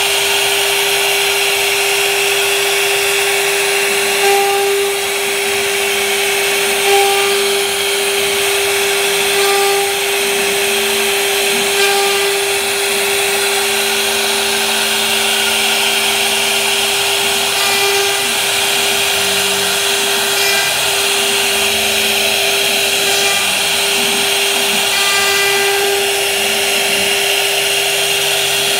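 CNC router spindle running with a steady high whine while its bit cuts grooves into a wood panel, over a constant hiss of cutting. Short faint tones come and go as the machine changes direction.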